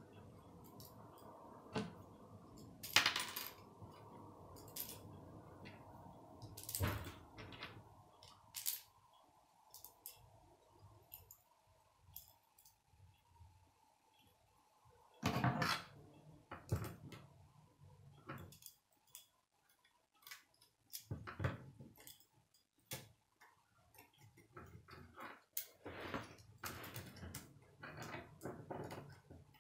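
K'nex plastic rods and connectors clicking and snapping together as they are handled and fitted, a run of irregular sharp clicks and small rattles. A faint steady hum runs under the first half.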